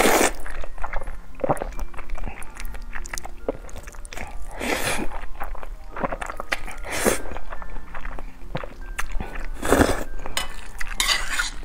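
Noodles being slurped and chewed: several loud, short slurps a few seconds apart, with wet chewing in between. The noodles are thick and sauce-coated and are eaten with chopsticks.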